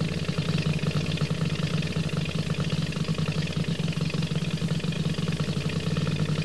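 Boat engine idling: a steady low hum with a fast, even pulse.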